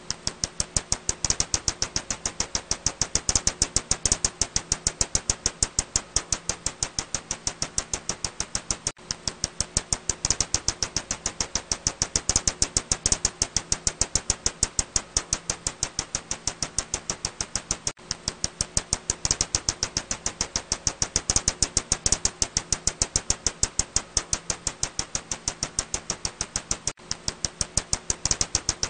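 Ussuri bat calls as a rapid, even train of clicks, about ten a second, with a brief break about every nine seconds and a faint low hum underneath.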